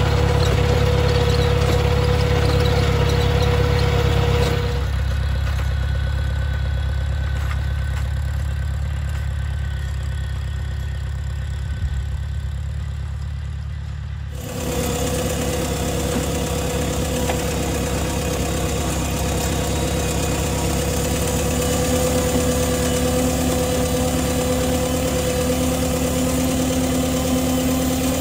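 Farmall 140 tractor's four-cylinder gasoline engine running steadily while it pulls a cultivator through the soil. The engine sound drops to a quieter, more distant level for about ten seconds in the middle, then comes back up close.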